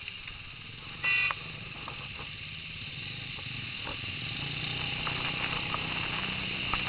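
Motorcycle engine running in slow city traffic, with a steady low hum that grows gradually louder as the bike moves off. A vehicle horn gives one short beep about a second in.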